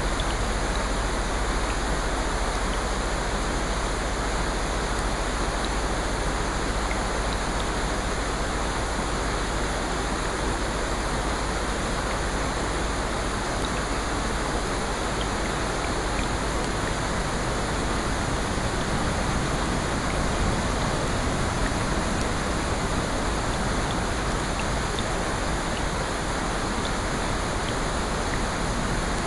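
Steady rain, a continuous even hiss with a few faint ticks.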